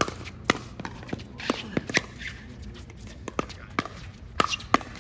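Pickleball rally: paddles hitting a hollow plastic pickleball in a quick, irregular series of sharp pops, about ten in five seconds.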